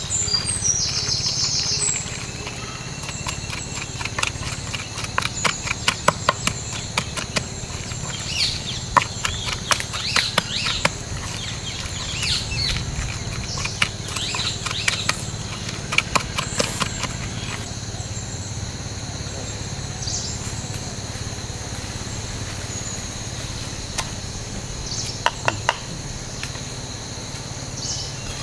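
Wooden pestle knocking and grinding a spice paste in a mortar: a run of irregular knocks for about fifteen seconds, then a few more near the end. A steady high insect chorus lies under it.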